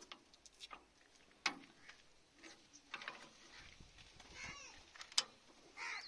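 Sharp metallic clicks and knocks of hydraulic hose quick-release couplers being handled and pushed onto a tractor's rear hydraulic couplers. The loudest clicks come about a second and a half in and just after five seconds.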